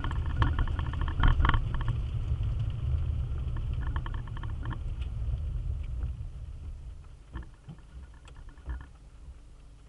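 Road and engine noise heard inside a car driving on a wet road, a low rumble that fades away over the last few seconds as the car slows to a stop. Intermittent higher-pitched rattling sits over it, loudest in the first two seconds.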